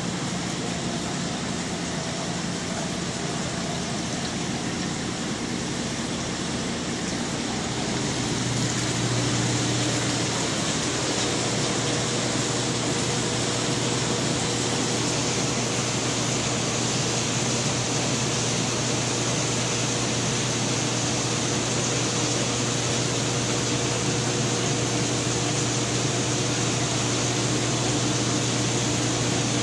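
Steady hiss of circulating water and pump hum from aquarium tank equipment. A low hum comes in and the sound grows a little louder about eight seconds in.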